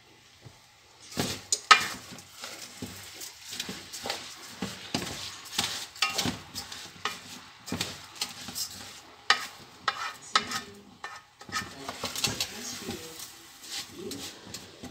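A wooden spoon stirring and scraping rice grains around an aluminum pot over high heat, with a light sizzle beneath; irregular scrapes and knocks against the pot start about a second in.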